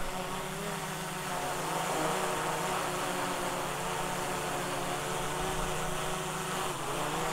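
DJI Air 3 quadcopter hovering close by and descending. Its four propellers give a steady buzzing whine whose pitch wavers as the motors adjust, and rises near the end.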